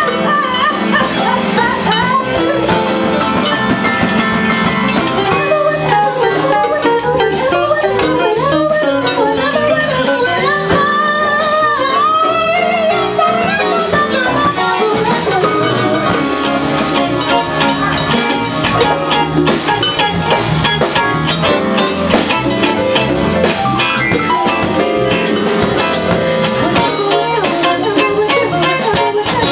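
Live band playing a song: a woman sings lead over electric keyboard, drum kit and congas, with a steady percussion rhythm throughout.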